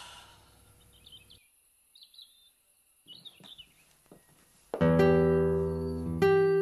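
A few faint bird chirps, then about three-quarters of the way in a loud keyboard chord rings out and slowly fades, with a second chord struck shortly after.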